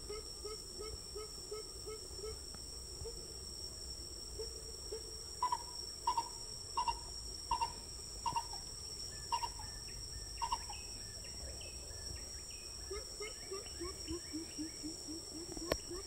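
Coucal hooting: a fast series of low, deep notes, three or four a second, at the start and again near the end. In the middle a louder, higher note repeats about nine times. A steady high insect drone runs underneath.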